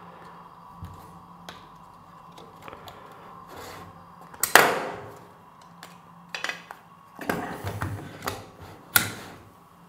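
Hands handling a Canon C300 Mark II camera body while stripping it down: small clicks and knocks of plastic and metal parts, with one louder scrape-like handling noise about halfway through and a cluster of knocks and rubbing near the end.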